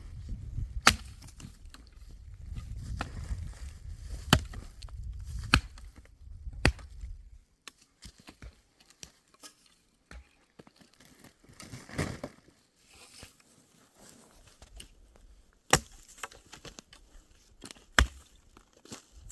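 Sharp single blows on dry wood, six in all, coming one at a time a second or several seconds apart, with faint crackling between them. A low rumble runs under the first strikes and stops about seven seconds in.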